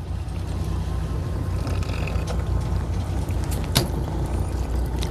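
Fishing boat's engine running steadily, a low even hum, with one sharp click about four seconds in.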